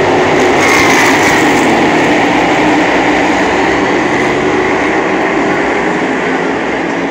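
Pack of NASCAR Cup Series stock cars, each with a pushrod V8, running at full throttle on a race restart: loud, dense, steady engine noise from the whole field, fading slightly near the end.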